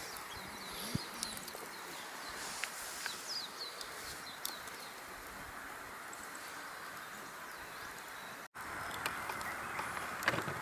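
Campsite ambience: a steady low hiss with a few faint bird chirps and scattered small clicks.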